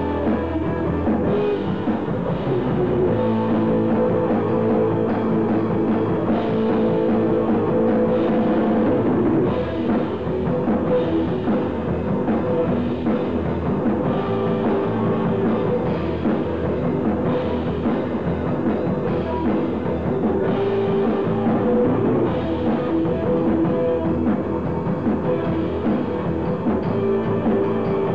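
Live rock band playing an instrumental intro on two electric guitars, bass and drum kit.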